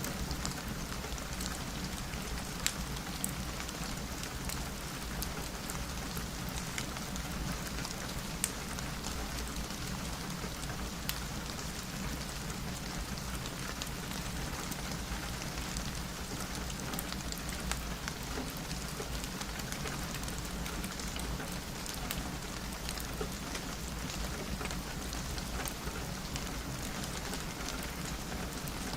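Steady rain falling on window glass, an even hiss of drops with scattered sharp ticks and pops throughout.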